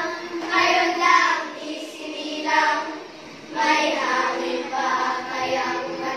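Recorded song with children's voices singing over backing music, with a short lull about three seconds in.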